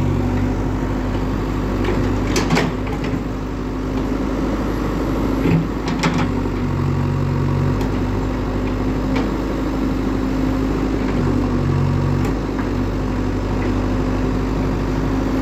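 JCB 3DX backhoe loader's diesel engine running steadily, with a few sharp clanks about two and a half and six seconds in and again near the end.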